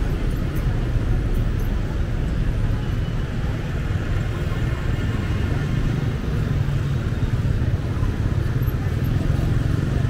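Steady street traffic: a continuous rumble of motorbike and car engines going by.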